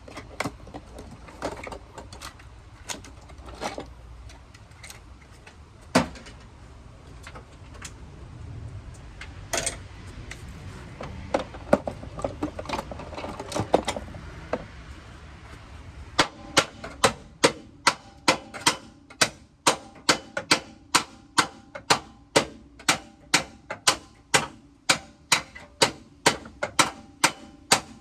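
Hammer blows on the steel of a pickup's front end, knocking at stuck, bent parts to free them. Scattered knocks and clanks come first; about halfway in they become a steady run of ringing metal strikes, two to three a second.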